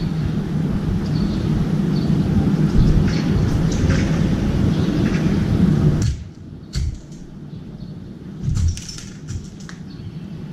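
A steady low rumble that cuts off abruptly about six seconds in. After it come a few sharp clicks and taps of a crow's beak pecking cat food from a stainless-steel bowl.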